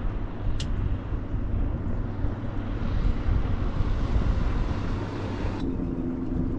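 Outboard motor running steadily at trolling speed, with a broad rushing hiss over its hum that cuts off suddenly near the end. A single sharp click about half a second in.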